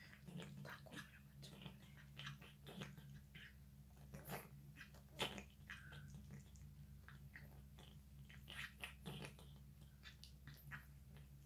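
A cat eating cat food: faint, irregular chewing and smacking clicks, with a steady low hum underneath.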